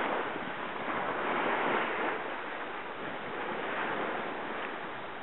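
Water rushing along a sailing yacht's hull as it sails through choppy water, with wind on the microphone; the rush swells and eases every second or two.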